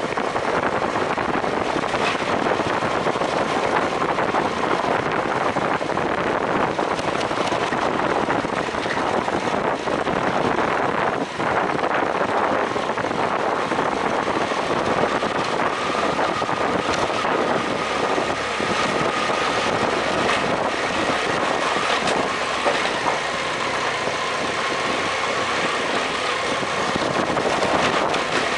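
BMW F800GS parallel-twin engine running as the motorcycle rides along, under a steady rush of road and wind noise. A faint steady engine tone comes through from about halfway in.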